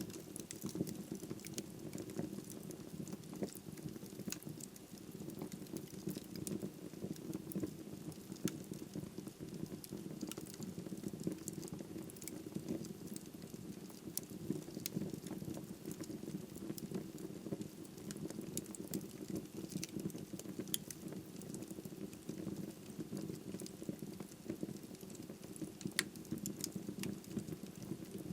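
Wood fire burning in a fireplace: a steady low rush of flame with constant irregular crackles and pops of burning wood, a few sharper pops standing out.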